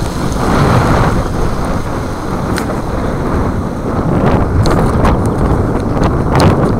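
Wind buffeting the microphone: a loud, rough rumbling rush throughout, with a few short clicks over it.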